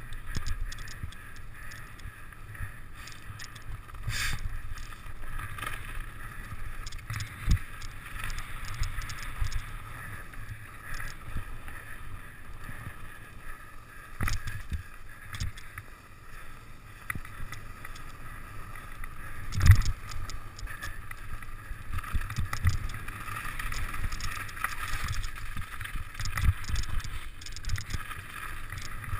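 Mountain bike ridden downhill over snow and dirt: tyres and rattling bike parts under a steady rush of wind on the microphone, with sharp knocks and jolts from bumps in the trail, the loudest about twenty seconds in.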